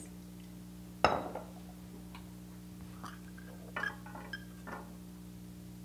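Kitchenware clinking: one sharp, ringing clank about a second in, then several lighter clinks and taps, over a faint steady hum.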